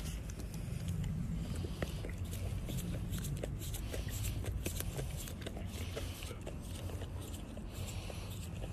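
A golden retriever licking and biting at an ice pop: irregular wet smacks and clicks of tongue and teeth, over a low steady rumble.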